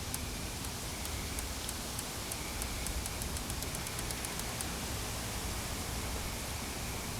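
Steady hiss of rain and wind during a severe thunderstorm, with a run of faint high ticks that come quicker and quicker through the first half.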